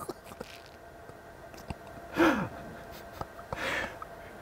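A man's short breathy vocal sound, falling in pitch, about two seconds in, then a breathy exhale about a second later, over low room tone.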